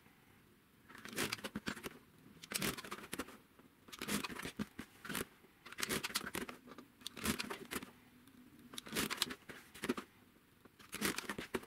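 Rotary cutter slicing through a sewn cotton strip set against an acrylic quilting ruler on a cutting mat, in repeated short scratchy strokes every second or two, between which the ruler and fabric are slid and shifted.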